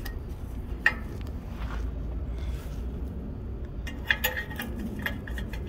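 A few light metallic clinks of tools or small metal parts being handled, over a low steady hum.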